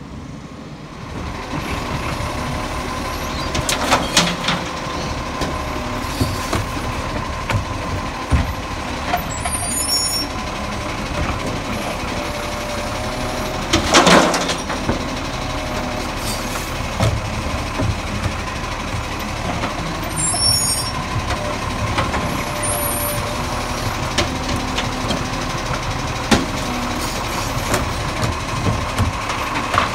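Acco side-loading recycling truck running close by as its hydraulic arm lifts and tips wheelie bins, with short air hisses and knocks of the bins. A loud clatter comes about halfway through.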